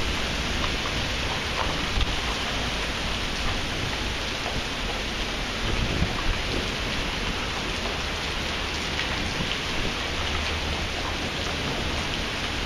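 Heavy, wind-driven thunderstorm rain pouring onto pavement and parked cars: a steady, even hiss, with a low rumble of thunder underneath.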